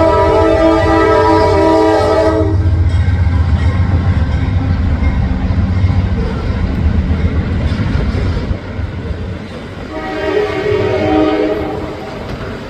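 Norfolk Southern locomotive sounding its air horn: a long chord that cuts off about two and a half seconds in, then the deep rumble of the diesel locomotive and train, and a second, shorter horn blast near the end.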